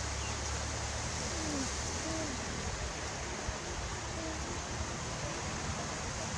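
Steady outdoor background hiss and low rumble, with a few faint, short falling calls now and then.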